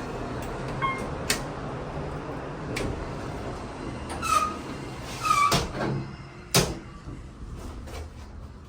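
Elevator running with a low rumble that fades as the car comes to a stop, with sharp clicks and clunks and two short squeaks; the loudest clunk comes about six and a half seconds in.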